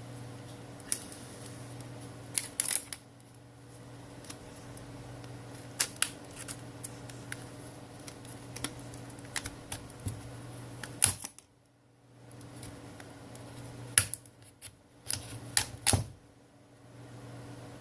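Sharp plastic clicks and snaps coming at irregular moments, about a dozen in all, as a pick is worked around the seam of a Samsung Galaxy Tab 3 10.1's back cover, releasing its retaining clips. A steady low hum runs underneath.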